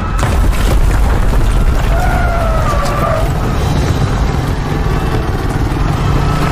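Film earthquake sound design: deep, continuous rumbling and booms of collapsing buildings, with a wavering high wail about two seconds in. A steady engine hum comes in near the end.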